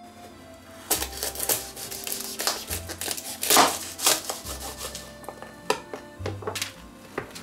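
Knife cutting through a garlic bulb on a plastic cutting board: a series of crisp crunches and knocks, loudest about three and a half seconds in, with lighter taps and handling near the end. Soft background music plays underneath.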